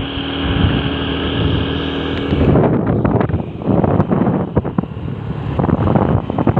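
Wind buffeting the microphone in irregular gusts. A steady humming tone sits under it and stops about two and a half seconds in.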